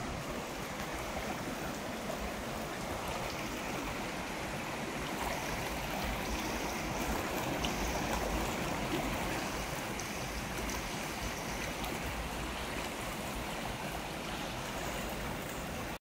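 Flood-swollen, muddy stream rushing steadily through a narrow stone-walled channel.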